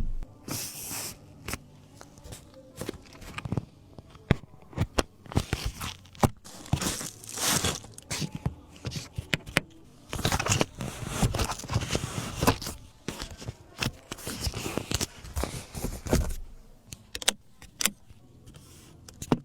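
Irregular clicks, knocks and rustling, like objects being handled at close range.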